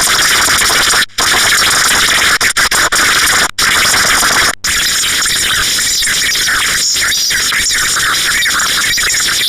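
Old Emergency Alert System broadcast audio played at five times speed: a loud, dense, high-pitched noisy wash with brief drop-outs about one, three and a half, and four and a half seconds in.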